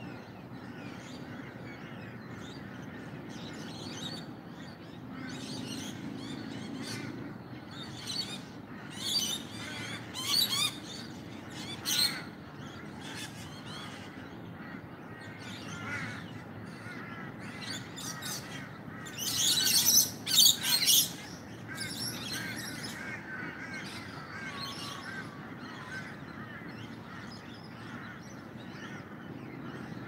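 Many birds chirping and calling together over a low steady hum, with a few loud harsh calls about a third of the way in and a louder burst of them about two-thirds through.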